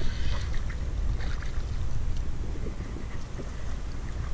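Low wind rumble on the microphone, with a few faint splashes and clicks as a small catfish is reeled in and lifted out of the water.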